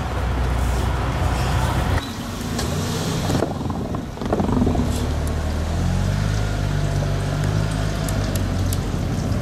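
Diesel train on the Kominato Railway running along the track, with a sudden change in the sound about two seconds in; from about six seconds in the diesel engine note steps up in pitch as the train gathers speed.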